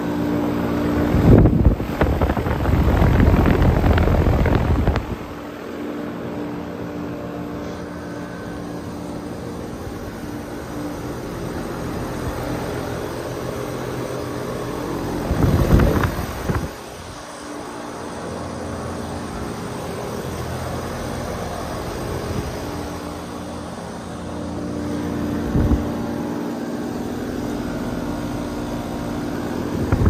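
Trane central air conditioner outdoor condenser units running: a steady low hum with the rush of air from the condenser fan. Air buffets the microphone loudly for several seconds about a second in, again briefly around the middle, and once more near the end.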